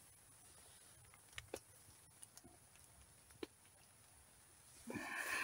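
Faint wood campfire crackle: a few sharp, isolated pops and ticks over a low, quiet background, with a louder, brief sound near the end.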